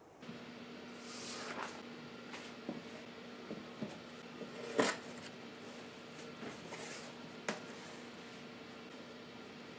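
Short knocks and taps from a wooden board and a rattan proofing basket being handled and set down on a table, the loudest knock about halfway through, over a steady low hum.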